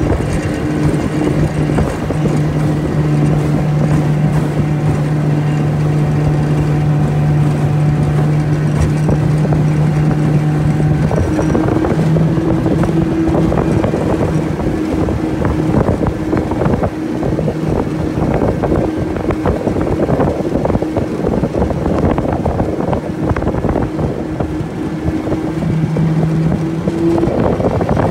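25 hp Johnson outboard motor running steadily, pushing a small aluminium jon boat along at speed, with a steady low drone. Wind noise on the microphone grows heavier from about the middle, breaking up the engine's tone.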